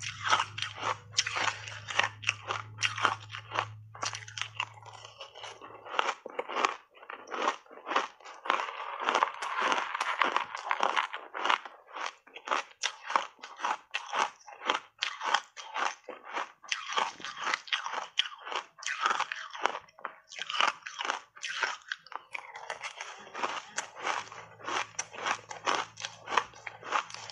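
Matcha-powdered ice chunks being chewed, crunching between the teeth in a fast, continuous run of crisp cracks, several a second, in big mouthfuls.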